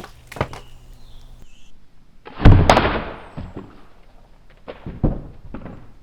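One heavy thud about halfway through, followed by a rattling decay and then a few smaller knocks.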